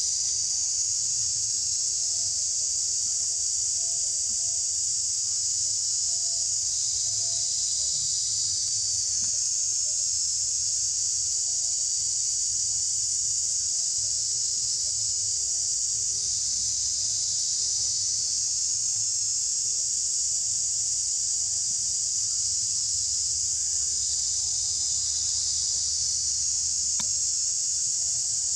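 Steady high-pitched drone of an insect chorus, running without a break and swelling a little about every eight seconds.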